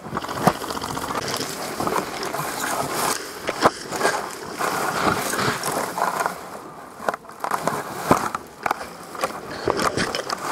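Continuous rustling and scuffing with irregular sharp clicks: a player moving about on foot, with gear and foliage brushing against the worn camera.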